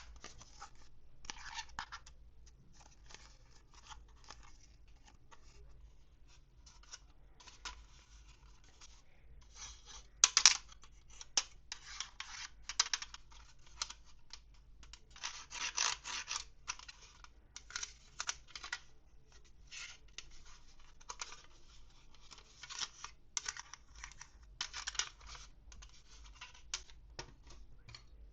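Toy packaging being unwrapped and handled close up: irregular crinkling, scratching and tearing in short bursts, loudest about ten seconds in.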